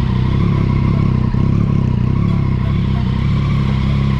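Yamaha XSR900's three-cylinder engine idling steadily through a full Akrapovic titanium exhaust with its baffles removed.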